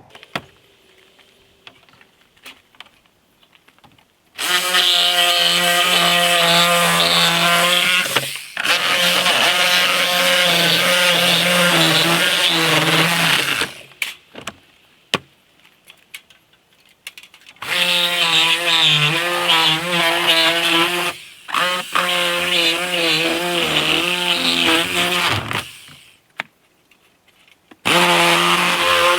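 Electric power tool run in five bursts of a few seconds each, its motor note wavering slightly under load and stopping completely between runs, as when cutting into the wall framing.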